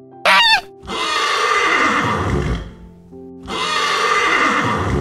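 A Canada goose honks once, then a horse whinnies twice, each whinny one and a half to two seconds long and falling in pitch. Background music with held notes plays throughout.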